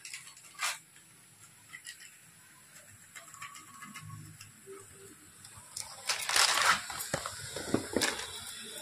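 Mostly quiet at first, then from about six seconds in a run of rustling, clicks and scrapes: a spatula working through sweet corn in a frying pan, with a spice packet being emptied over it.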